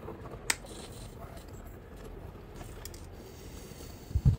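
Shears snipping through aluminium bonsai training wire: one sharp snip about half a second in, then faint ticks and scraping of the wire, and a short low thump near the end.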